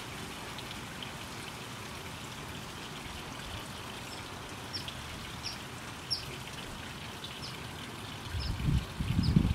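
Steady trickle of water from a garden fountain. From about four seconds in, a bird repeats short, high, falling chirps roughly every half second to second. Near the end, loud low rumbles hit the microphone.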